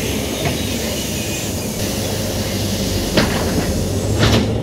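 NefAZ-5299 city bus riding, heard from inside the cabin: steady engine and road rumble with a loud hiss that cuts off near the end, and a few short rattling knocks.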